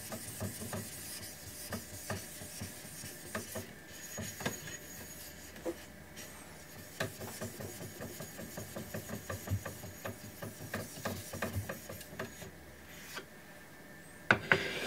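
Scraping strokes on a wet natural sharpening stone, with small irregular knocks and taps, easing off near the end.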